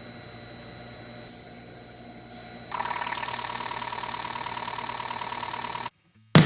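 Cleaned Honda Civic fuel injectors running on an injector test bench. A low steady hum gives way, about three seconds in, to a louder, fast, even buzzing of the injectors pulsing, which cuts off suddenly near the end.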